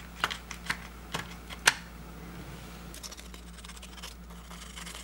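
A few sharp plastic clicks as a BMW instrument cluster's fuel gauge is handled and worked free of the circuit board, the loudest about two seconds in, followed by a faint hiss of fine sandpaper rubbing on the gauge's terminal posts to clean off corrosion.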